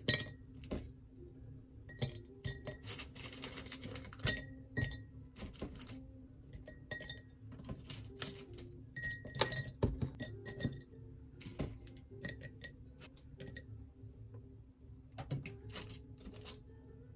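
Crisp oven-dried lemon slices dropped one by one into a glass jar, making irregular light clinks and taps against the glass, over soft background music.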